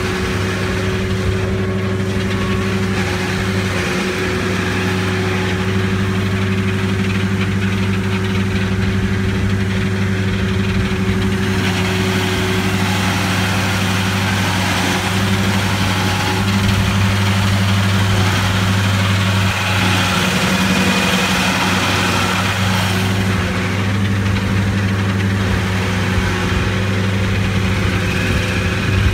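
Heavy stump-grinding equipment's engine running at a steady speed, a constant loud hum that neither revs up nor dies down.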